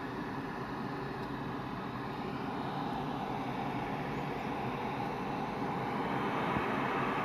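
Water boiling hard: a steady rumbling bubble, growing a little louder near the end.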